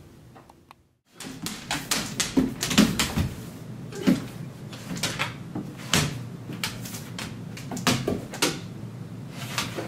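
Two Great Danes playing on a hardwood floor: irregular thumps, knocks and clicking claws as they move and shuffle around each other, starting about a second in.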